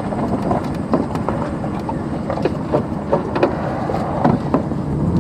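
Vehicle driving slowly: a steady low rumble with scattered clicks and knocks.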